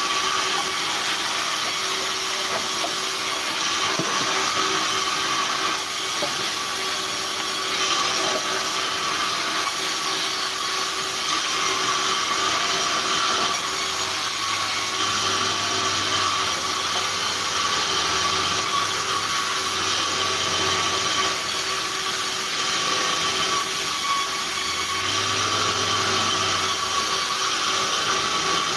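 Sawmill band saw running and ripping lengthwise through a log: a steady, loud saw noise with a constant high tone. A low hum comes and goes in the second half.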